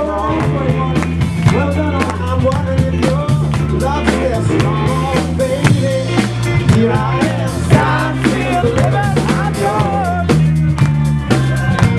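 Rock music with bass, a drum kit keeping a steady beat, and a wavering melody line that may be singing.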